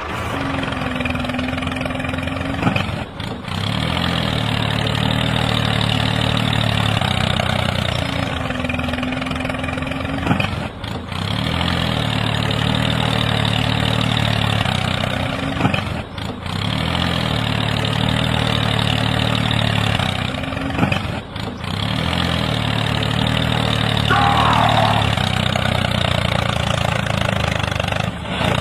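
Tractor engine running steadily, with a short dip about every five to six seconds where the same stretch of engine sound starts over.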